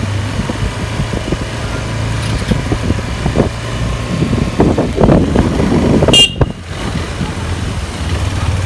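KTM 250 Adventure's single-cylinder engine running steadily under way in street traffic, with a brief shrill tone about six seconds in.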